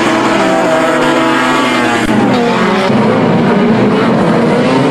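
Engines of several rear-wheel-drive banger race cars revving as they race, many pitches rising and falling over one another.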